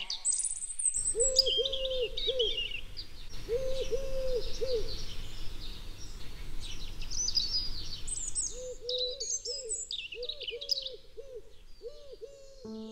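Garden birdsong: small songbirds chirping and twittering high up, with a low hooting call of three or four soft notes repeated several times.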